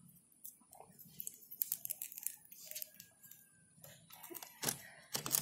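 Scattered light clicks and taps from fingers on the plastic Visuo drone transmitter as its buttons are pressed and the controller is handled.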